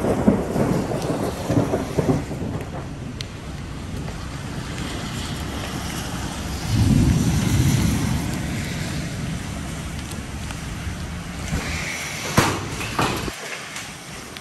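Thunderstorm sound: steady rain and wind noise on the microphone, with thunder rumbling through the first couple of seconds. A low rumble swells about seven seconds in, and a sharp crack comes about twelve seconds in.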